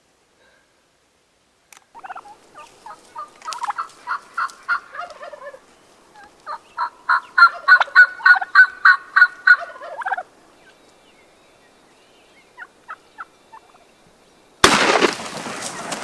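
Turkey yelping: two runs of evenly spaced yelps, about three a second, the second run louder and about a dozen notes long. Near the end a sudden, loud burst of noise cuts in and carries on.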